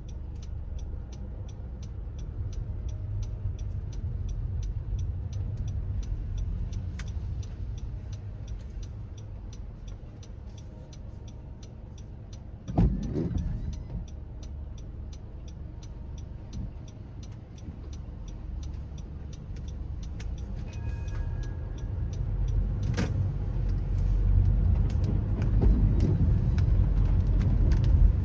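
Car driving through city streets on wet roads: a steady low rumble of engine and tyres that grows louder toward the end. Over it is a fast, even ticking of about three ticks a second, and one sudden loud noise comes about halfway through.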